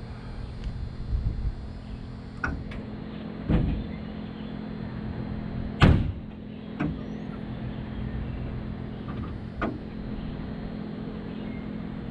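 Five separate hammer blows on metal, irregularly spaced, the loudest about six seconds in with a short ring after it, over a steady low hum.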